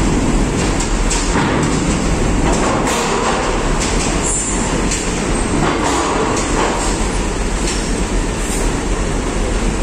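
Hino dump truck driving slowly up a ferry's steel loading ramp onto the car deck: a heavy diesel rumble with repeated metallic clanks.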